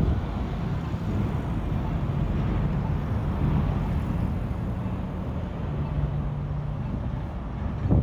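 Street traffic: a steady low rumble of vehicle engines, a heavy semi-truck's engine hum among them, with a brief sharp knock near the end.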